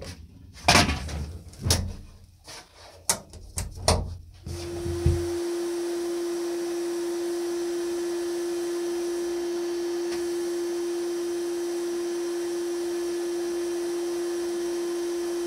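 Rusty sheet-metal parts knocking and clattering as they are laid on wooden blocks inside a sandblast cabinet. After about four and a half seconds the cabinet starts running: a steady tone with a faint even hiss from the blast gun and air.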